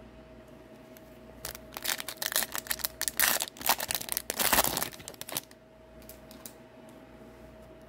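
Foil wrapper of an Upper Deck hockey card pack being torn open and crinkled: a run of tearing, rustling bursts lasting about four seconds, starting about a second and a half in.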